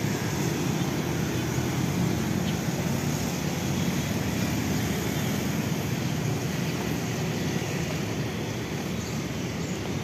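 Steady low rumble of outdoor background noise, easing off slightly toward the end.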